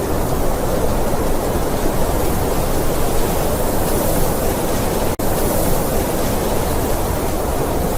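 Blizzard wind blowing steadily, a dense rushing noise heaviest in the low range with a thinner hiss above. It drops out for an instant about five seconds in.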